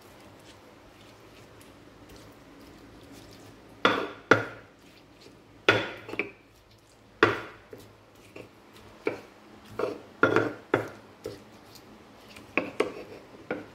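Stone pestle knocking against a stone mortar while crushing and mixing chopped tomato and shallots: a series of sharp, irregular knocks, some in quick pairs, starting about four seconds in.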